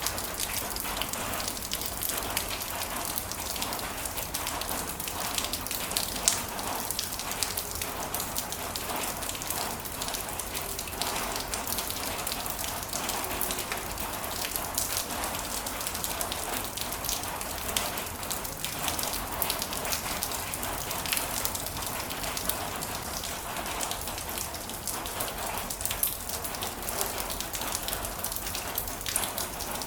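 Heavy rain falling steadily, a dense hiss thick with sharp individual drop taps.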